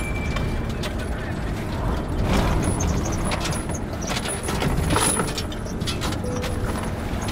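Patrol car running, with irregular rattling and clicking from the cabin and its gear over a steady low rumble.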